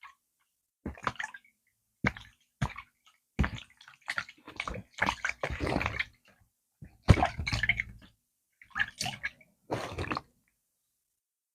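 Close-up wet eating sounds of plantain fufu with slimy okra soup: squelching chews, smacks and swallows in irregular short bursts with silent gaps, stopping about a second before the end.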